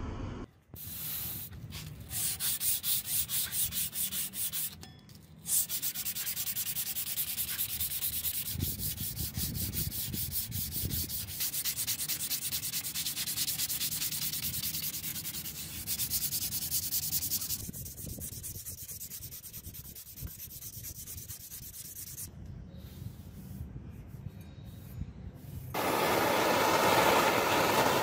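Sandpaper rubbed by hand in quick back-and-forth strokes over the steel of an axe blade cut from an old saw blade. Near the end a gas torch starts up with a loud steady roar.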